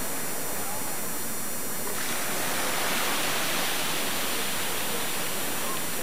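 Steady rushing noise of wind and sea water, a little brighter from about two seconds in.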